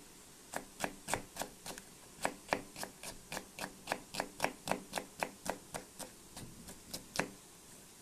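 Knife chopping slim green peppers into rings on a wooden cutting board: a steady run of sharp taps, about three or four a second, which stops about seven seconds in.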